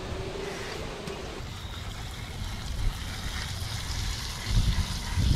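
Garden hose spray nozzle hissing as water rinses carburetor parts clean after an overnight soak in cleaner. Low rumbles of wind on the microphone come in near the end.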